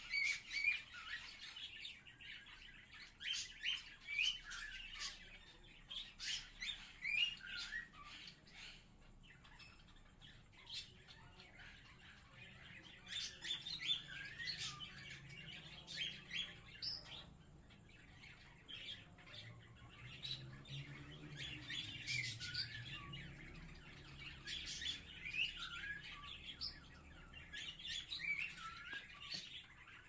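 Pet birds chirping in quick bursts of short, high calls, with quieter spells of a few seconds in between.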